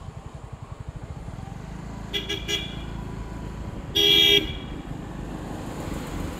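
A vehicle horn gives three quick toots, then about two seconds later one longer, louder blast, over the steady low rumble of a vehicle moving along the road.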